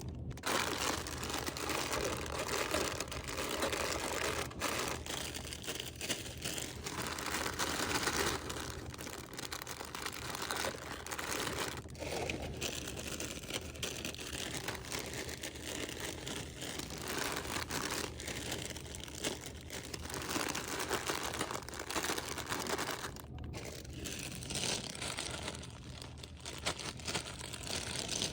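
Plastic snack packaging crinkling and rustling as it is handled, nearly continuous with brief lulls.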